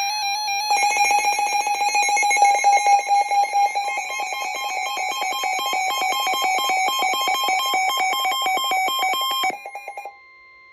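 Emergency weather-radio alert alarm signalling a new tornado warning: a loud electronic tone pulsing rapidly, about ten times a second, with a warbling pitch, over a fainter steady tone. The pulsing stops about nine and a half seconds in, leaving only the steady tone briefly.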